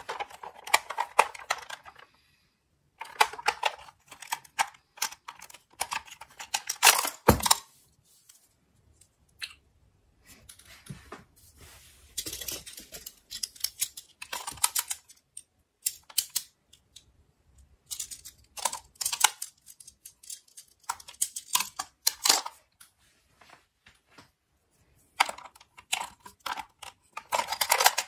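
Plastic toy ambulance being handled: quick clicking and rattling of its plastic parts as the rear doors are worked and a stretcher piece is taken out and put back. The clicks come in bursts with short pauses, with one sharper knock about seven seconds in.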